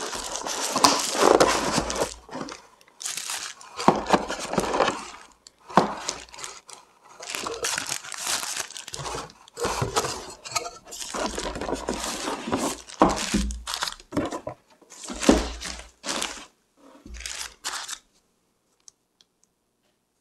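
Soft plastic wrapping bag crinkling and rustling in irregular bursts as it is handled and pulled off by hand, with a few low handling bumps; it stops about two seconds before the end.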